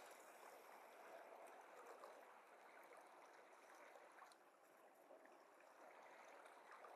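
Near silence: only a faint, even wash of water, with a few tiny ticks about a second or two in.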